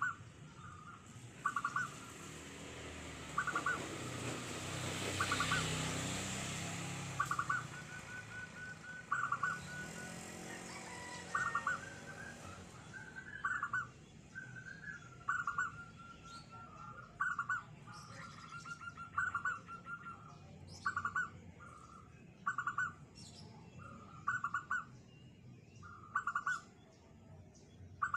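Zebra dove (perkutut) cooing: short call phrases repeated about every two seconds, with softer trilled notes between some of them. A broad rushing noise swells and fades a few seconds in.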